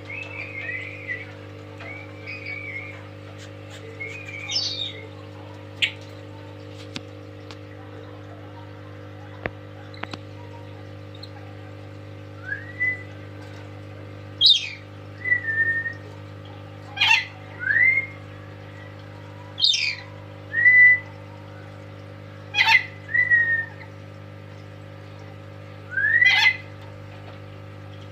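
A pet lory (nuri) calling: soft chattering at first, then from about halfway a run of loud, shrill calls, each a sharp falling shriek followed by a short rising whistle, repeated every two to three seconds. A steady low hum runs underneath.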